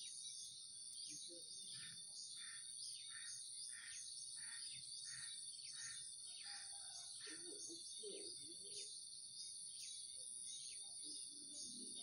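Faint, steady high-pitched insect trill, with a run of short chirps repeated about twice a second in the first half.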